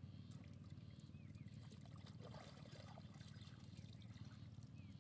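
Near silence: a faint steady low rumble of outdoor background, with a few faint short chirps.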